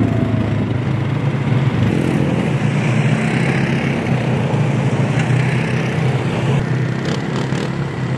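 ATV (quad bike) engines running steadily as the quads drive along, a continuous engine hum, with a single thump about two-thirds of the way through.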